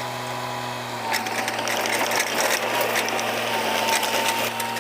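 Mini excavator's engine running steadily, with quick rattling and clicking from the machine as it works.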